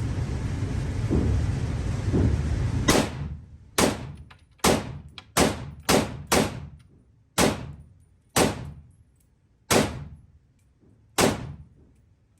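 About ten rifle shots from a 7.62 rifle, fired singly at an uneven pace of roughly one a second, each with a short echoing tail. A low rumbling noise runs for the first few seconds, before the shooting starts.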